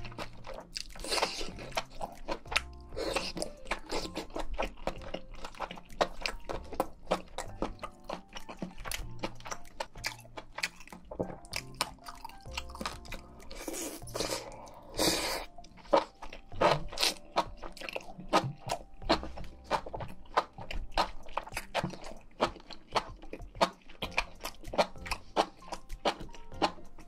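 Close-miked chewing and crunching of food, a dense run of irregular wet crackles and bites, over soft background music.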